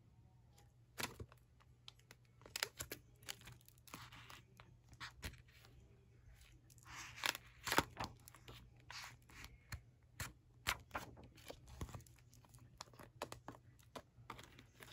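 A diary being handled in its clear plastic zipper-bag cover: irregular crinkling and rustling of the plastic and paper pages, with small clicks and taps, loudest about seven to eight seconds in.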